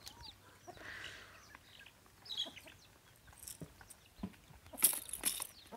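Chickens clucking, with scattered short high chirps, and a brief louder scuffing noise about five seconds in.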